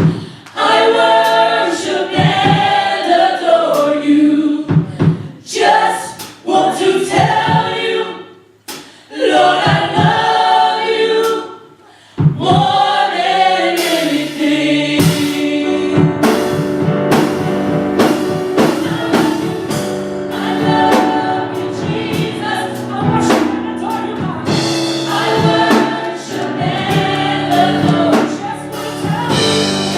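Gospel choir singing. For the first dozen seconds it sings in short phrases with brief pauses between them, then it sings on without a break over a beat of sharp, regular hits.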